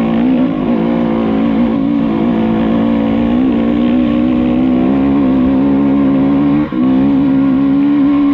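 Enduro motorcycle engine running under load, its pitch wavering slightly with the throttle. Near the end it briefly drops off, then picks up again at a slightly higher pitch.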